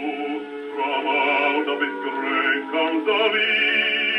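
A man's bass voice singing with vibrato from a 1923 Columbia 78 rpm record played on a Columbia 113a portable wind-up gramophone. The sound is narrow, with no deep bass and little treble.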